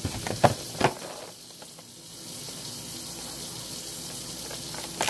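Clear plastic egg carton clicking and crackling as it is opened, with a few sharp clicks in the first second. A tap runs in a steady hiss underneath.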